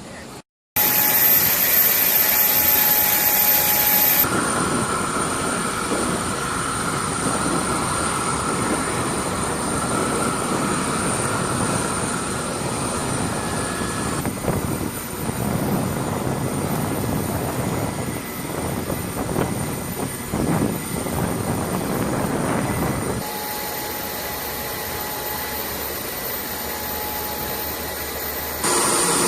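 Jet engine noise from a C-5M Super Galaxy's turbofans: a steady rumble with a high whine, heard across several edited shots. The sound drops out briefly just after the start.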